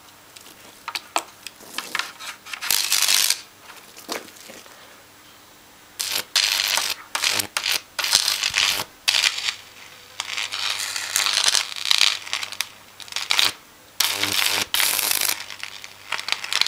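High-voltage arc from a microwave-oven transformer's output lead burning into a computer motherboard and scorched concrete: sharp, sizzling crackle that comes and goes in spells of a second or two, with a quieter pause about four to six seconds in, over a steady low hum.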